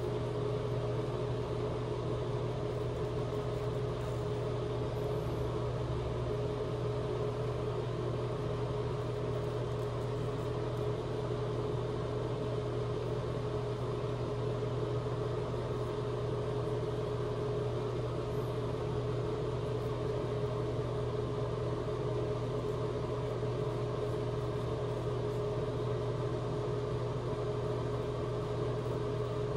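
A steady machine hum at one unchanging pitch, a low drone with a higher tone above it.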